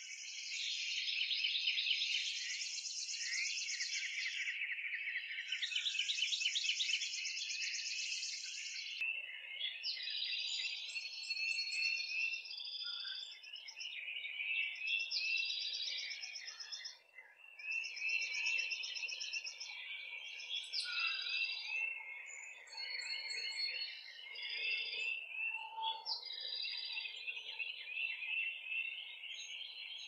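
Many songbirds singing at once in a dense, overlapping chorus of chirps and trills. The background changes abruptly about nine seconds in, with a faint low haze under the birdsong from then on.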